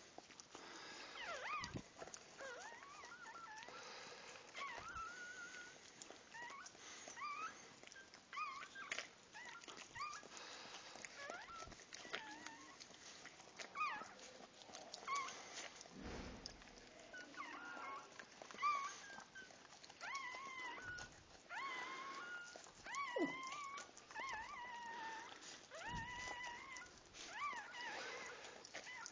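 Newborn dachshund puppy squeaking and crying in short, high, wavering squeals, coming faster and longer in the second half, while its mother licks it clean.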